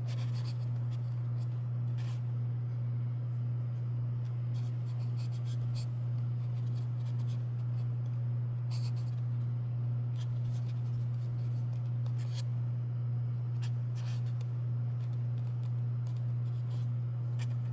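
Steady low electrical hum, with faint scattered light ticks.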